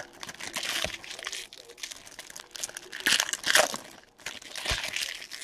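Shiny foil wrappers of 2016 Panini Donruss Soccer card packs crinkling and crumpling in the hands, in several short spells with a couple of sharp clicks.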